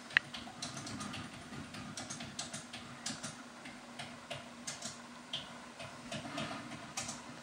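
Faint, irregular light clicks and taps over a low steady hum, with one sharper click just after the start.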